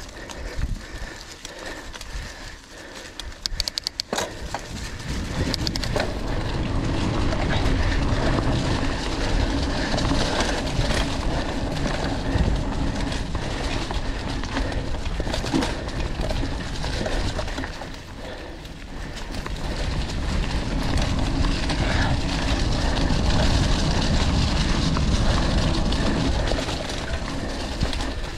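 Mountain bike riding over a rough forest trail: tyre rumble and the rattle of the bike over the ground. It is quieter with a few sharp ticks for the first few seconds, grows loud about six seconds in, and eases off briefly about two-thirds of the way through.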